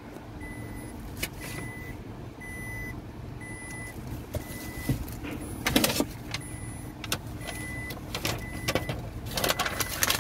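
Inside the cabin of a 2022 Nissan Altima, a warning chime beeps over and over at an even pace over the low, steady hum of its 2.5-litre engine idling. Clicks and rustling come about six seconds in and again near the end.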